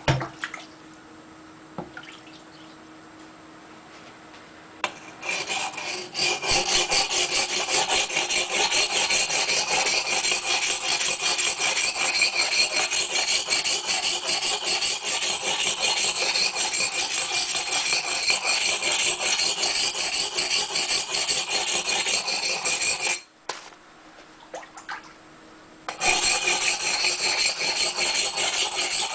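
Axe blade rubbed rapidly back and forth over the coarse side of a wetted whetstone, regrinding a nicked edge back into shape. The grinding starts about five seconds in, stops for a few seconds near the end, then resumes.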